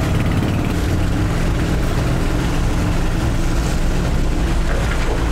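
Outboard motor on a small aluminium boat running hard at a steady pitch, driving the boat up a creek to make a run at a shallow dam.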